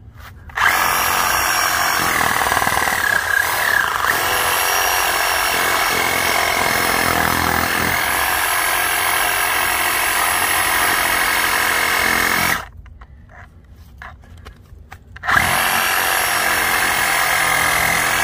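A handheld electric power tool runs steadily with a high whine, cutting a slit in lawn soil as a ground radial wire is fed in. Its pitch dips briefly about three seconds in. It stops about twelve and a half seconds in and starts again nearly three seconds later.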